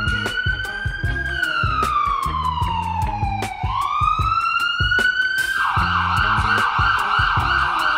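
Siren wailing, its pitch slowly rising, falling and rising again, then switching to a fast yelp about five and a half seconds in, over background music with a steady beat.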